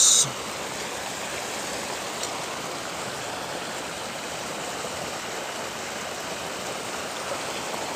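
Steady rush of water flowing along a small irrigation channel.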